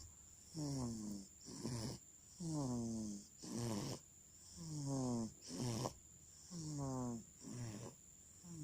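A baby just under three months old snoring in its sleep. About every two seconds a breath gives a falling snore, followed by a shorter one, four times over.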